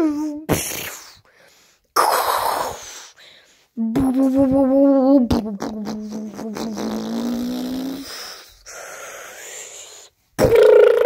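A child's mouth-made sound effects for a flying toy ship: a falling whoop, hissing blast noises, a wavering hummed engine tone that slides down in pitch midway, and a loud steady buzzing drone near the end.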